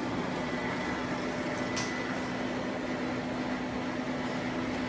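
Konica Minolta C7000 production colour printer running as it warms up: a steady mechanical hum with a low steady tone, and a faint click about two seconds in.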